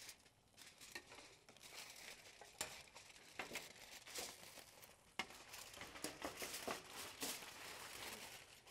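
Aluminum foil crinkling and crackling in irregular handfuls as it is folded and pressed tightly around a smoked pork butt, the foil-wrapping step known as the Texas crutch.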